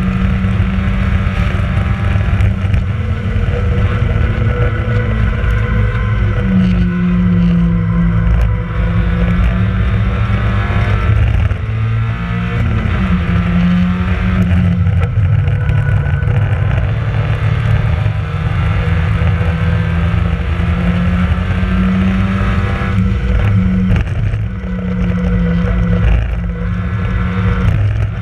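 Onboard sound of a Mazda MX-5 race car's four-cylinder engine running hard at high revs on track. Its pitch falls and climbs back several times.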